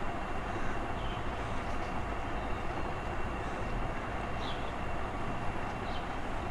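Steady background rumble and hiss with a thin, high steady whine, and a few faint light ticks.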